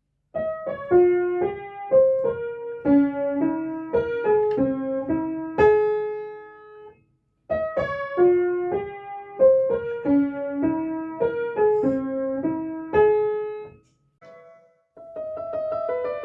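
A phone ringtone: a short piano melody of single notes that plays through, stops briefly, and repeats. Near the end a different ringtone with fuller chords begins.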